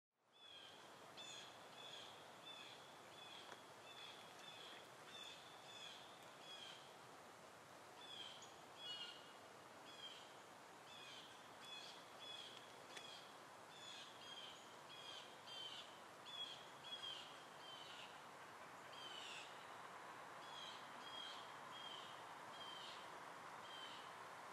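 Faint bird calls: short, high, slightly falling notes repeated about twice a second with brief pauses, over a steady low background hiss.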